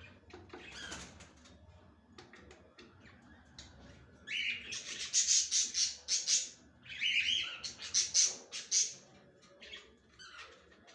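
Budgerigars chattering and squawking: scattered high chirps, then two loud stretches of harsh chatter, about four and seven seconds in.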